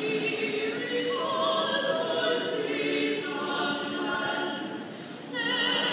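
A choir singing slow, held chords, several voices sustaining notes together and moving from chord to chord.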